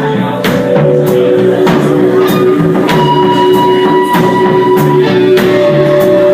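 Band music with a drum kit keeping a steady beat, a moving bass line and guitar with long held notes.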